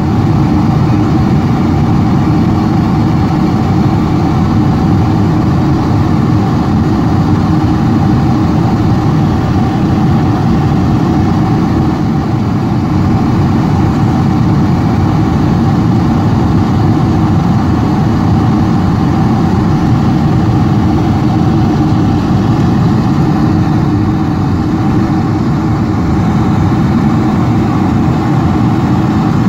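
Steady in-flight cabin noise of a Boeing 747-400ER heard from a window seat over the wing: a constant deep rush of engines and airflow with a low hum.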